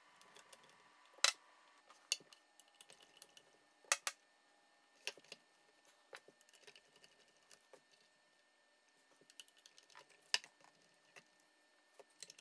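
Scattered light clicks and knocks of a paper shredder's plastic and metal parts being handled during disassembly, with three louder knocks spread through.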